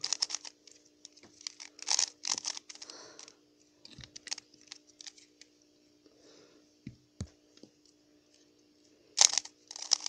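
Concave 3x3 Rubik's cube being turned by hand: irregular quick clicks and clacks of the plastic layers, with a louder flurry of clatter near the end.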